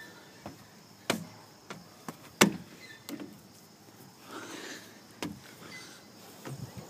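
Footsteps and knocks on a perforated metal playground deck: a few irregular sharp thumps, the loudest about two and a half seconds in.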